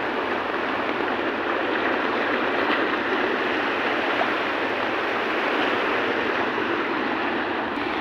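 Muddy floodwater rushing steadily over a concrete road causeway.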